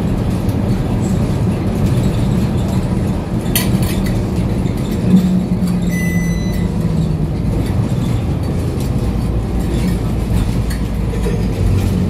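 Interior sound of a Scania K310UB city bus on the move: its diesel engine and drivetrain run with a steady rumble, with short rattles from the cabin fittings. A short electronic beep sounds about halfway through.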